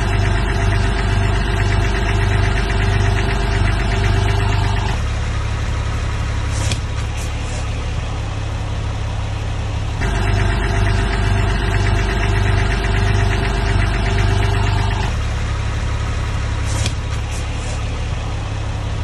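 Two car engines idling one after the other: first a Cabriolet's engine with a clanking of metal parts banging, which is taken as parts lacking lubrication or worked loose. About five seconds in it switches to a Porsche 911 996's flat-six idling smoothly, with little banging. The pair then plays again.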